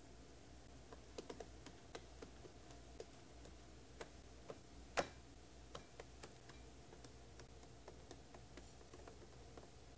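Faint, irregular small clicks and taps, with one sharper click about five seconds in, over a steady low room hum.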